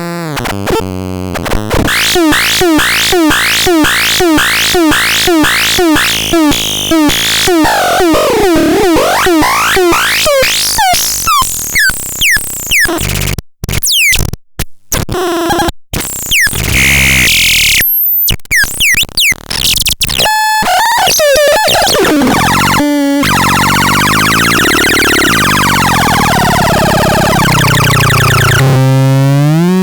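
Synthesizer noise from the Petit Chat: quick pitch sweeps repeating about twice a second, then glitchy stuttering with sudden drop-outs midway, then a warbling tone that slowly rises and falls.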